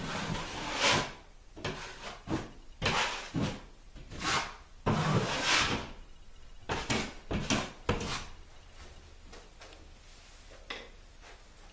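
Building materials being handled: a string of short scrapes, rubs and knocks, some of wood, over about eight seconds, then only faint handling noise.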